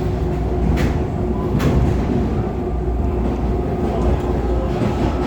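CPTM Série 2000 electric multiple unit running along the line: a steady, loud rumble of motors and wheels with a constant hum, and two sharp clacks about a second and a second and a half in.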